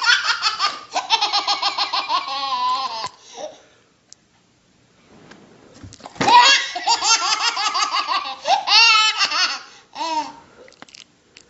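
A baby laughing hard in rapid, high-pitched fits: one long run of belly laughter, a pause of about three seconds, then a second long run and a short last burst.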